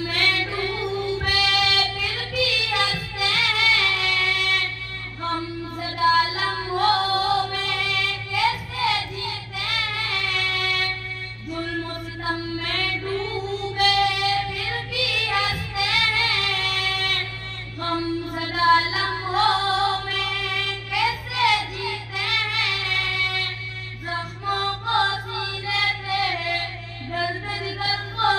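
A boy singing a nasheed solo through a public-address system, in long, wavering held phrases, with a steady low hum from the sound system underneath.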